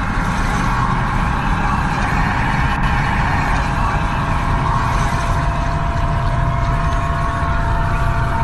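Dark ambient drone music: several steady held tones over a rumbling, noisy low end, with no beat.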